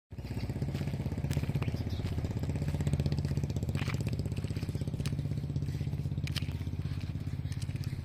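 An engine running steadily with a fast, even beat, and a few brief clicks over it.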